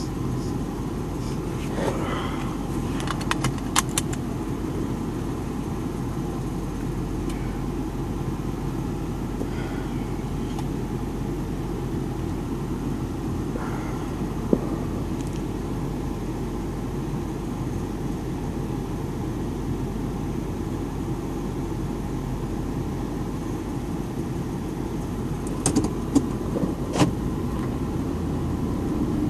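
Motor vehicle running, a steady low rumble, with a few sharp clicks and rattles about two to four seconds in and again near the end.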